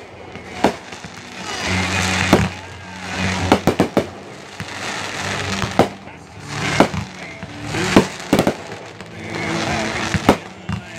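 Fireworks going off in a pyromusical show: sharp reports and bursts about every second, some in quick clusters, with hissing from the rising shells' tails. Music with steady low notes plays under the fireworks.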